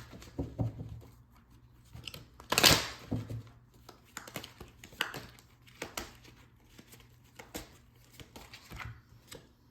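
A deck of tarot cards being shuffled and handled: one loud rush of shuffling about two and a half seconds in, then scattered light flicks and taps as cards are drawn and laid down.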